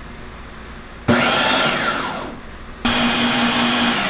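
Electric food processor pulsing a thick pimento cheese mixture of shredded cheddar, mayonnaise and sour cream. The motor kicks on about a second in, then winds down. It kicks on again near three seconds, runs steadily for about a second, and starts winding down at the end.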